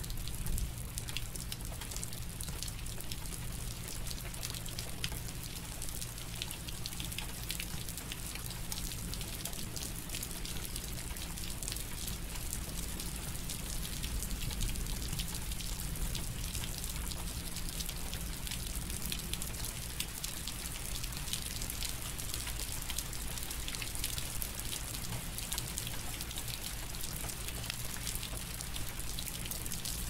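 Steady rainfall, a dense hiss of many small drops landing, with a faint steady low hum underneath.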